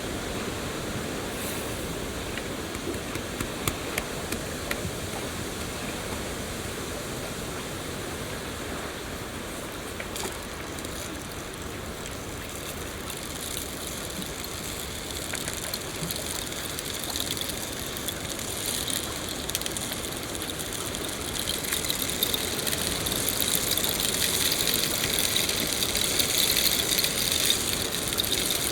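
Steady rain falling, a continuous hiss with scattered sharp drip ticks, growing louder and heavier from about two-thirds of the way in.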